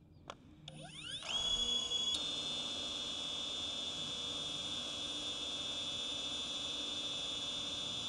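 DJI Avata 2 FPV drone's motors and propellers starting up on the ground: a whine that rises in pitch from rest about a second in, steps up to a higher pitch about two seconds in, then holds a steady high whir at idle.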